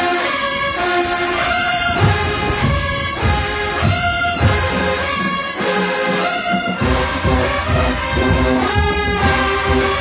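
Large marching band's brass section, sousaphones among it, playing loud sustained chords. Low beats join in about two seconds in, drop out briefly, and come back thicker about seven seconds in.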